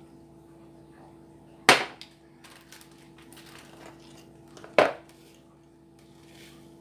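Two sharp knocks of objects put down on a tabletop, about three seconds apart, the first as a drinking glass is set down; quieter clicks and the rustle of a plastic detergent packet and measuring spoon being handled in between.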